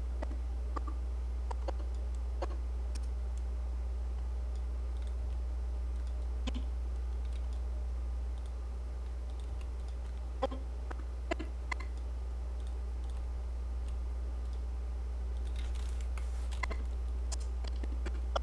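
Scattered computer mouse clicks and keyboard key presses, a dozen or so single clicks with gaps between them, over a steady low electrical hum.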